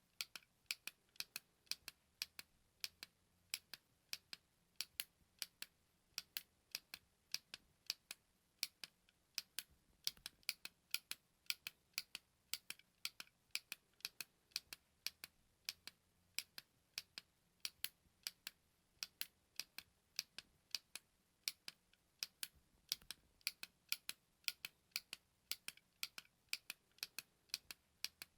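Short, sharp button clicks repeating in quick succession, about two or three a second and slightly uneven, like a button being pressed over and over.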